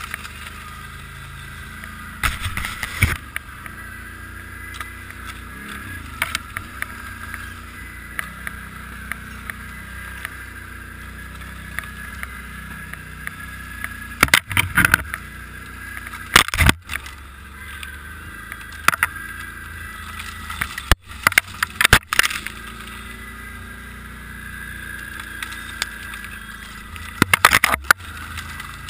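An ATV's engine running steadily as it rides a snowy trail, with sharp knocks and rattles every few seconds from the bumps and from branches hitting the machine and rider. The biggest clusters come in the middle and near the end.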